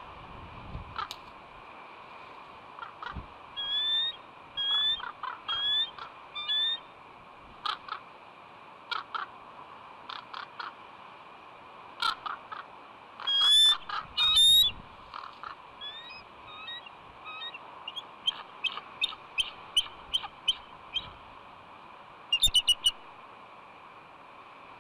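Bald eagle calling from the nest: repeated series of short, high piping notes, loudest about halfway through and running into a fast chatter near the end. These are her calls for help while crows try to take her egg.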